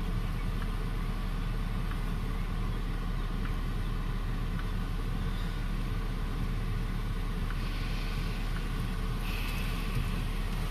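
Car engine idling, heard from inside the cabin as a steady low hum. Two short hisses come near the end.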